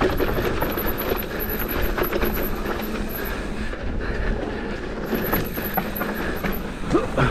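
Mountain bike running fast down a dirt trail: tyres rolling over dirt and the bike rattling over bumps, with wind rumbling on the microphone. A fast, high ticking stops about three seconds in and returns about five seconds in.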